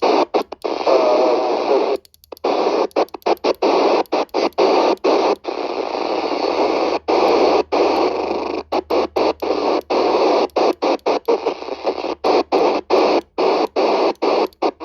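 FM static hiss from a CRE 8900 CB radio's speaker on the 27 MHz UK FM channels, repeatedly cut by brief silences, with a longer gap about two seconds in, as a weak skip signal fades in and out.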